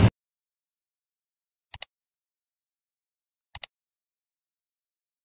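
A train's running noise cuts off abruptly at the very start. Then near-total silence is broken twice by a quick double click, about two seconds apart: the mouse-click sound effect of a subscribe-button animation.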